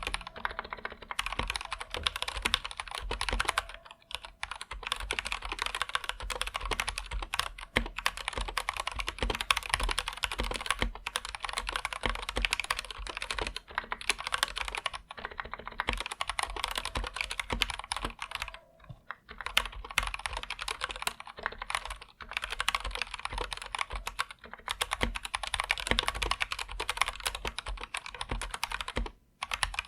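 Anne Pro 2 mechanical keyboard with linear Gateron Red switches, typed on continuously in fast, dense keystrokes, with a few short pauses: about four seconds in, near nineteen seconds and just before the end.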